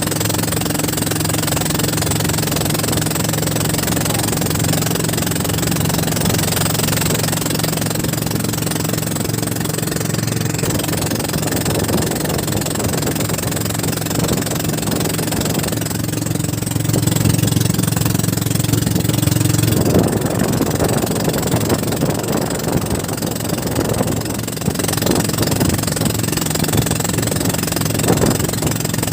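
A fishing boat's engine running steadily, with a constant hum and noise. About two-thirds of the way through it swells briefly, then its hum fades and a rougher hiss remains.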